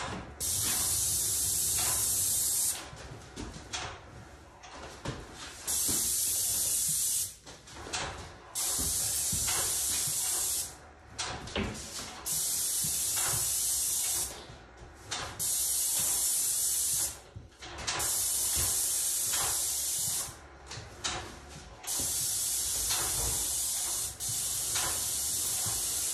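Paint spray gun hissing in about eight trigger pulls of roughly two seconds each, with short gaps between passes as white enamel is sprayed onto doors.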